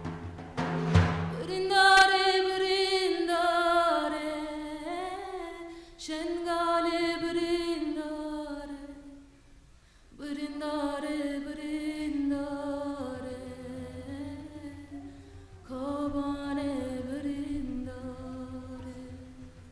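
Female singing of a Kurdish Alevi song, unaccompanied: four long held phrases with a slowly wavering, ornamented melody, separated by short breaths. Two drum strikes sound in the first second.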